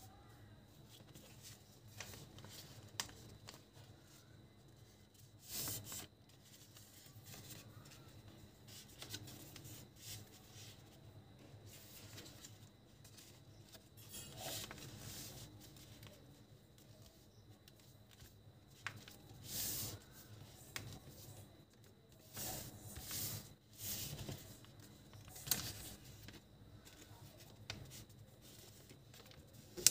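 A sheet of A4 printer paper being folded and creased by hand: soft rubbing and sliding, broken every few seconds by short crisp swishes of paper. A faint low hum runs underneath.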